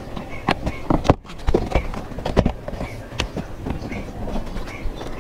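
Plastic retaining clips of a Honda City's door trim panel popping loose as the panel is pried off with a screwdriver and pulled by hand: a string of irregular sharp clicks and knocks, the loudest about a second in.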